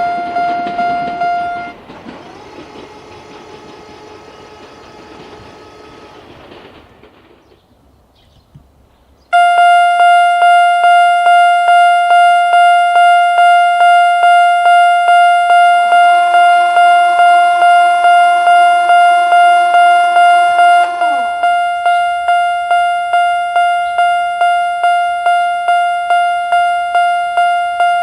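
Electronic single-tone level crossing alarm sounding, a little over two strikes a second. It stops about two seconds in while a train's running noise fades away. It starts again at about nine seconds and keeps going, and a train passes with a motor whine that drops in pitch as it goes by.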